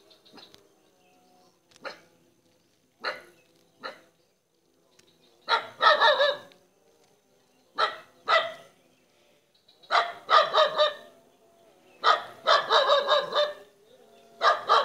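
An animal giving short, loud, barking calls: single calls at first, then bouts of several calls in quick succession that grow longer and come more often.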